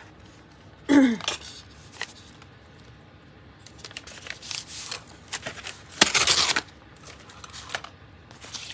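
Paper being handled: rustling, sliding and crinkling of journal pages and a loose book page, in short scattered bursts, the loudest about six seconds in.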